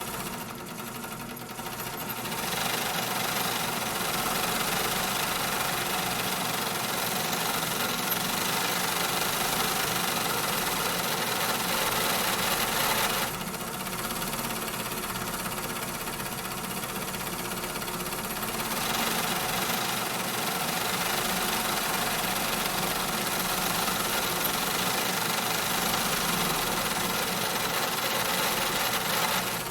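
Factory ambience: machinery running steadily, a dense mechanical din with layered steady hums. It starts quieter and fills out after about two seconds; the higher clatter drops away about halfway through and returns some five seconds later.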